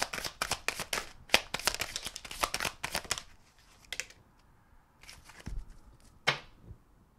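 Tarot cards shuffled by hand: a quick run of card flicks and riffles for about three seconds. This is followed by a few soft taps as cards are drawn and laid on the table.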